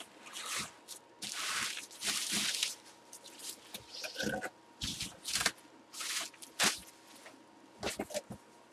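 Cardboard box flaps and bubble wrap rustling and crinkling in irregular bursts as a bubble-wrapped football helmet is pulled out of its shipping box.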